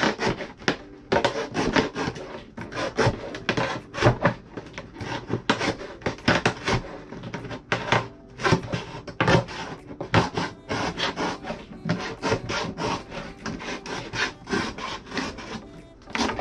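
A knife sawing through the side of a large plastic water jug in rapid, uneven strokes.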